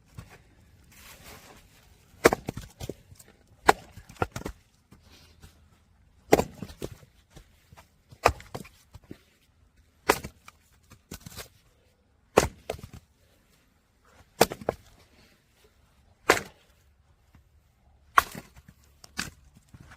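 Firewood being split: a sharp crack about every two seconds, nine in all, each followed by lighter knocks and clatter of the split pieces.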